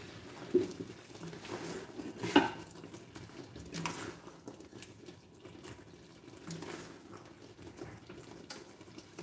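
A spoon scooping thick chicken pot pie filling out of an enameled Dutch oven, with scrapes and several clinks against the pot. The sharpest knock comes about two and a half seconds in.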